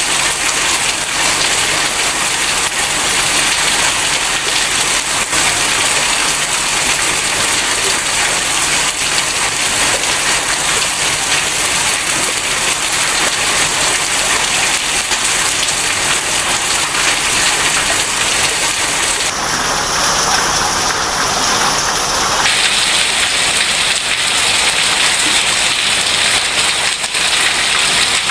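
Heavy rain falling steadily, a loud even hiss; for about three seconds past the middle its high hiss briefly dulls.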